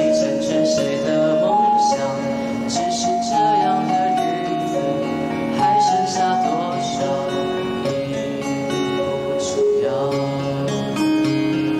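A young male voice singing a Mandarin ballad through a handheld microphone, holding notes over instrumental accompaniment with plucked guitar.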